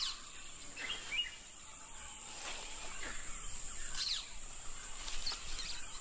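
Rainforest ambience: scattered bird chirps and a few short falling whistled calls over a steady, high insect drone.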